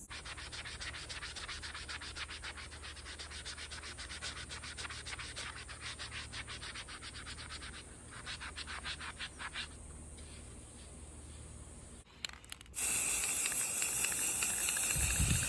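Sandpaper worked by hand over a 3D-printed plastic helmet part in fast back-and-forth strokes, with a short pause and a second run of strokes. About 13 seconds in it changes abruptly to a louder steady hiss of an aerosol spray can.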